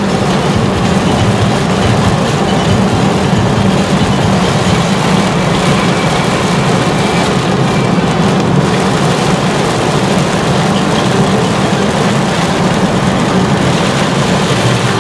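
Steady noise inside a moving car driving in heavy rain: a low drone from the road and engine, with tyres hissing on the wet road and rain on the windshield.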